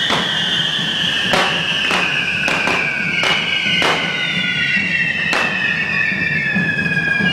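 Whistling firework fountains and spinning sparkler wheels, several high whistles sounding together and slowly sinking in pitch, with about eight sharp firecracker bangs.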